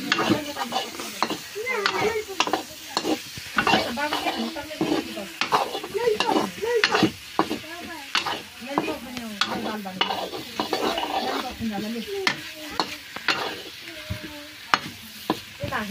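Fish pieces sizzling in hot oil in an iron kadhai while a long steel ladle stirs them, scraping and knocking against the pan over and over.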